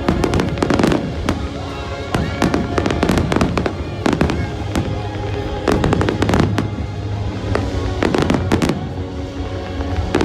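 Fireworks bursting in rapid clusters of sharp bangs, with music playing alongside.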